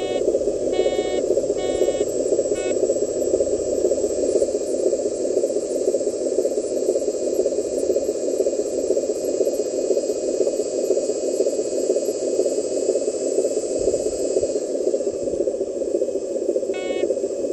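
RC dump truck's motor and gearbox running steadily as it drives over rough ground. Short beeps come about once a second during the first three seconds and again at the very end.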